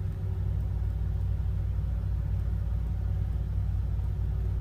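Steady low hum or rumble of background noise, unchanging throughout, with no distinct events.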